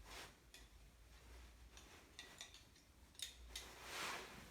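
Faint metallic clicks and light rattles of pruning shear parts being handled while the shears are put back together.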